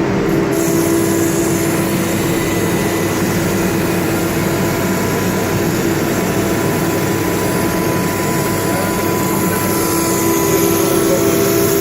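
CNC router running steadily: a continuous mechanical drone with a few held tones over a hiss, the hiss brightening about half a second in.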